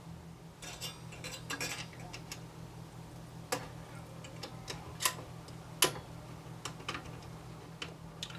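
Scattered light clicks and taps of small metal and plastic computer parts being handled, the sharpest about three and a half, five and six seconds in, over a faint steady low hum.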